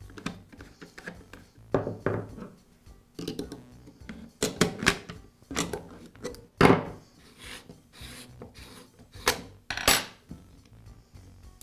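Screwdriver and needle-nose pliers clinking and scraping against a Senco stapler's magazine while the hinge screw is worked out and the rail cover is removed. Irregular sharp clicks and clanks, the loudest a little past halfway and another near the end.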